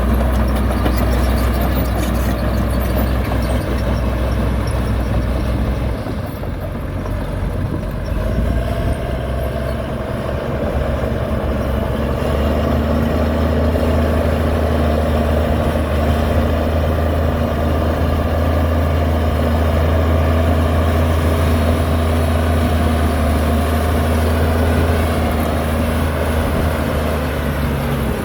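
Heavy diesel engine of construction machinery running continuously, with a low steady hum; about twelve seconds in the engine note rises and holds higher, as under load.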